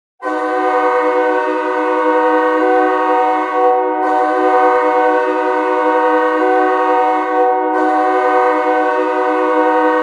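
Ice hockey goal horn of the Austin Bruins: a loud, steady multi-note air-horn chord that starts abruptly and sounds without a break.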